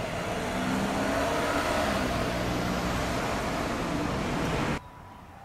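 Road traffic: a car passing close by, its engine and tyre noise steady. It cuts off suddenly near the end, leaving only faint background.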